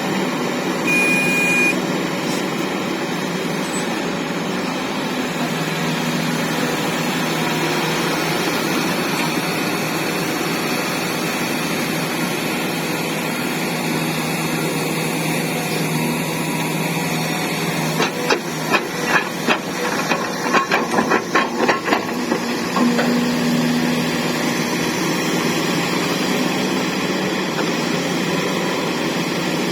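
Heavy diesel machinery of a Volvo excavator loading a Scania P360 dump truck, running steadily. A short high tone sounds about a second in, and a quick run of sharp clattering knocks comes about two-thirds of the way through.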